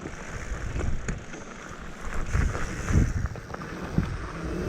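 Mountain bike riding downhill on a dirt and sand trail: wind buffeting the microphone, tyres rolling over loose ground, and the bike knocking and rattling over bumps, with a few harder thumps from about two seconds in.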